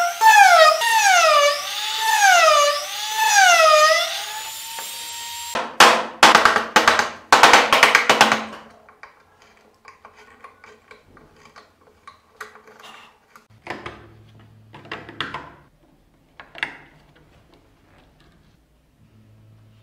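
Rotary tool with a small cutting wheel grooving a wooden wheel: its whine dips and recovers about once a second as it bites, then runs free briefly and stops about five seconds in. A few seconds of loud rasping strokes on wood follow, then quiet scrapes and taps of a hand chisel cutting into the wood.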